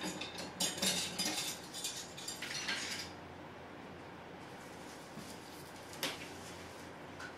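Art supplies being handled on a tabletop, among them a plastic-wrapped canvas panel: a run of rustling and light clicking for about three seconds, then a single sharp click about six seconds in.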